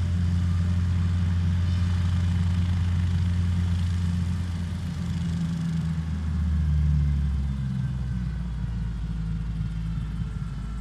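Guimbal Cabri G2 helicopter's piston engine and rotors running in flight, a steady low drone whose pitch drops about six seconds in.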